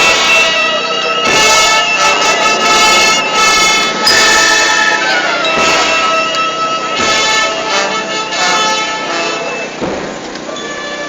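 Band of brass and woodwinds with drums playing a slow funeral march: held chords over a heavy drum stroke about every second and a half.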